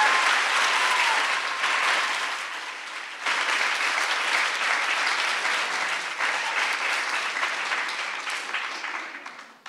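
Audience applauding: steady clapping that sags shortly before three seconds in, picks up again, then thins out and dies away near the end.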